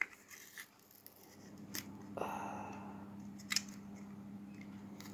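Sharp clicks and a short scrape of plastic packaging being handled as the seal on a RAM module's package is opened, with a steady low hum setting in about two seconds in.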